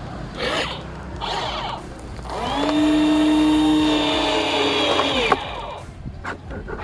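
Small electric motor of a homemade robotic excavator whirring for about three seconds, its pitch rising as it spins up and dropping as it stops, after a couple of short bursts of noise.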